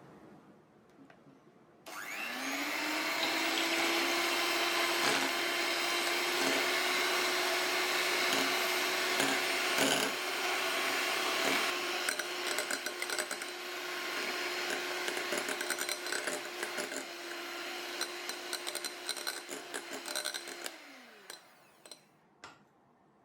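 Electric mixer running, whisking in a bowl: the motor spins up about two seconds in, holds a steady whine with the beaters ticking and knocking against the bowl, and winds down near the end.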